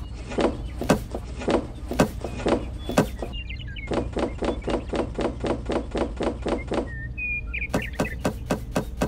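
Small toy carrots being dropped one by one into a little wooden crate: a run of light taps and knocks, about two a second at first, then an even four a second, and quicker again near the end.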